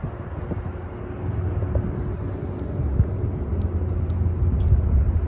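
Low, steady rumble of a motor vehicle running, with a faint steady hum above it and a few light clicks.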